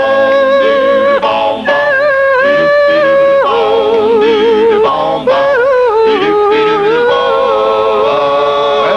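Doo-wop vocal group singing a wordless harmony break: a high falsetto lead holds long notes with vibrato over lower backing voices that change chord every second or two.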